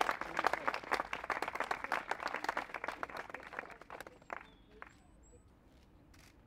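Applause from a group of schoolchildren and adults clapping their hands, dense at first and dying away about four seconds in.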